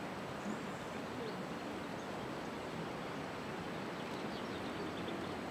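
Steady outdoor background noise in an open field, with a few faint bird chirps.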